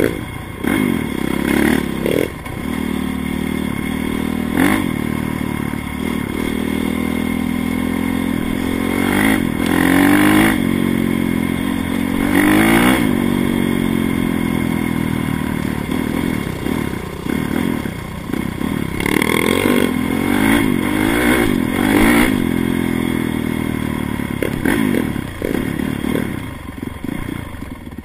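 Dirt bike engine running under way on a dirt track, its pitch climbing and falling again and again as the rider accelerates and backs off, with the hardest pulls about ten, thirteen and twenty seconds in.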